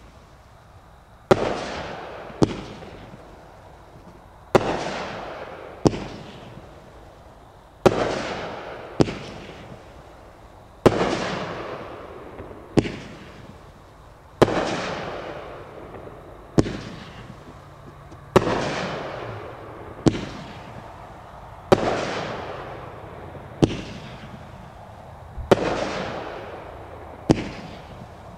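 'Reaper' consumer fireworks cake firing shot after shot: about sixteen sharp bangs, roughly one every one to two seconds. Each bang is followed by a fading hiss from the silver glittering tails.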